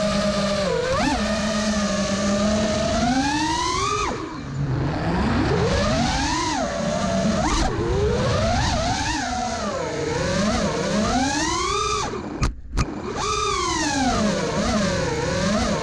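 Armattan Rooster FPV racing quadcopter's brushless motors and propellers whining, the pitch constantly rising and falling as the throttle is worked through freestyle moves. The sound nearly drops out for a moment about three quarters of the way through.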